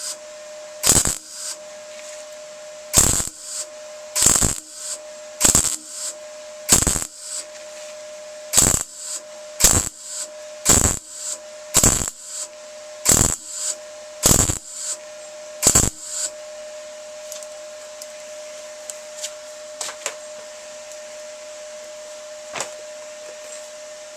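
Welder stitch-welding a replacement body panel on a VW T25 van, filling the seam gap in about a dozen short bursts roughly a second apart that stop about two-thirds of the way through. A steady hum runs underneath.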